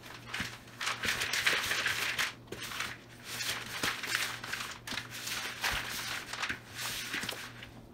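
Wooden spoon stirring cookie dough with chocolate chips in a plastic bowl: a run of rough scraping, squishing strokes, one after another.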